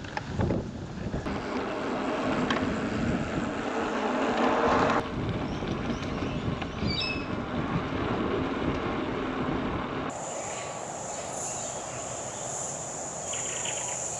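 Wind rushing over the microphone and tyre noise from a bicycle being ridden. The noise changes abruptly about five and ten seconds in, and a steady high hiss carries through the last few seconds.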